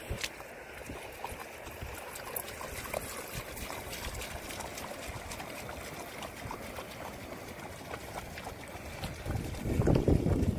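A dog wading through shallow lake water, its legs splashing and sloshing with many small splashes. Near the end a louder low rumble rises over the splashing.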